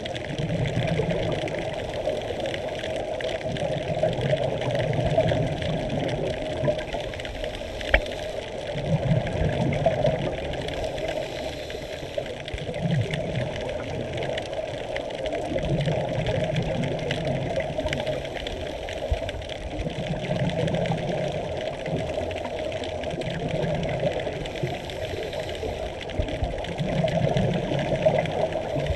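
Scuba diver's regulator breathing heard underwater: bursts of exhaled bubbles every two to three seconds over a steady hiss. A single sharp click about eight seconds in.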